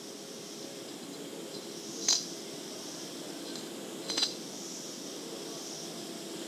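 Old cassette tape playing back through earbuds held to a phone microphone: steady tape hiss and hum, with two sharp clicks about two seconds apart.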